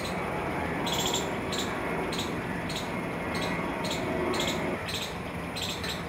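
Outdoor street ambience: a steady background hum with short, high-pitched chirps repeating about twice a second.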